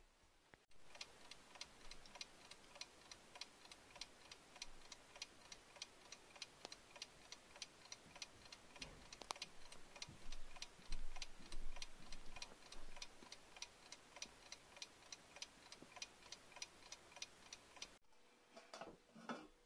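Soviet Vityaz mechanical alarm clock ticking steadily, about five ticks a second, with a few louder knocks about ten to twelve seconds in. The ticking stops near the end, and a brief handling sound follows as a pot lid is lifted.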